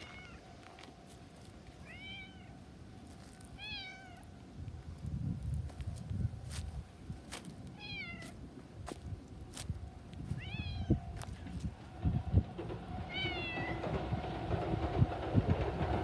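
Ginger cat meowing, six short meows that rise and fall in pitch, spaced one to three seconds apart. From about a third of the way in, wind rumbles on the microphone and grows louder toward the end.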